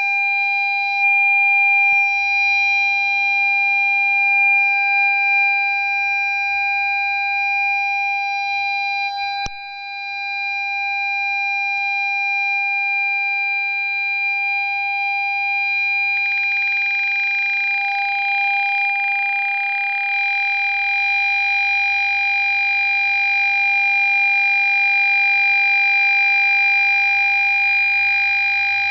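Ford Fiesta parking sensor warning sounding one continuous steady tone, the solid tone that signals an obstacle very close. It dips briefly about a third of the way in, and a hiss joins it a little past halfway.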